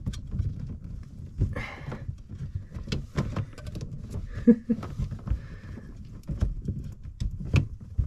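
Plastic water filter canister being handled and lowered among water hoses: scattered clicks, knocks and rubbing of plastic against tubing, with a sharper knock about 7.5 seconds in.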